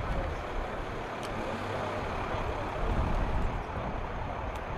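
Steady, fluctuating rumbling noise of an airfield flight line, heaviest at the low end, with no distinct events.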